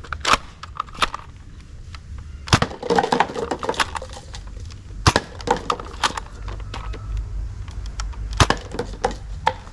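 Plastic toy blaster being handled: an irregular series of sharp clicks and knocks, with a clattery stretch about three seconds in, over a low rumble.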